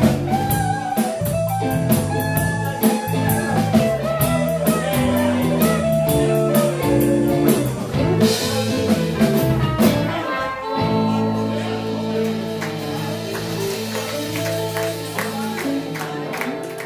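Live electric blues band with electric guitars, bass guitar, drum kit and harmonica playing. About ten seconds in the drumming thins out and the band settles into long held chords with a cymbal wash.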